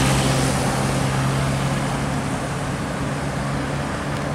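Isuzu heavy truck driving past on the expressway: a steady low engine drone over tyre and traffic noise, easing slightly near the end.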